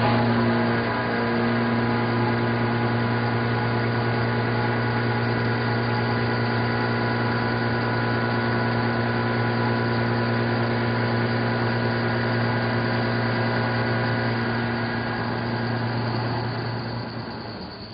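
Walter Xtra-tec F4153 disc milling cutter (125 mm, six inserts) milling 42CrMo4 alloy steel at 586 rpm: a steady mechanical drone of the cut with fixed tones over a hiss, fading out near the end.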